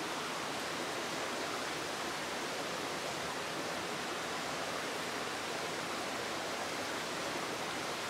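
Steady, even rushing of flowing creek water.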